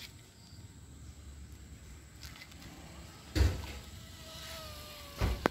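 Faint whine of a small RC plane's FX803 motor and propeller in flight, holding a steady pitch and then dipping slightly, over a low rumble. Two dull thumps, a little past halfway and near the end, are louder than the whine.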